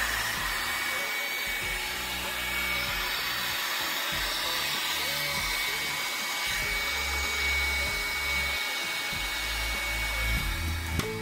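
Revlon hair dryer with a diffuser attachment running steadily, blowing air onto hair.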